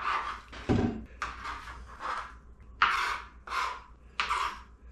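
Kitchen knife scraping across a cutting board in about six short strokes, gathering freshly diced onion, with one low thump about a second in.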